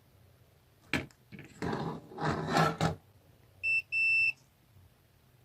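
Digital multimeter's continuity beeper sounding twice, a short high beep and then a longer one, as the probes find a low-resistance path across a power-supply part. Before it, a click and some rustling handling noise.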